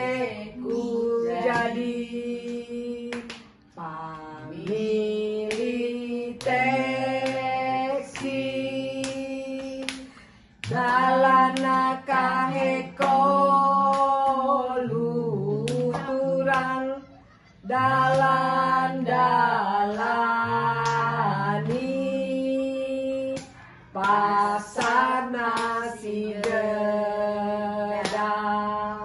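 Several women singing a song together without instruments, in phrases of long held notes with short breaks between them, with a few sharp hand claps.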